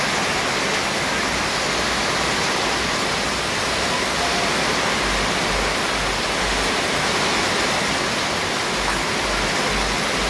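Steady, loud rushing noise, even from low to high, with intermittent low rumbles in the second half.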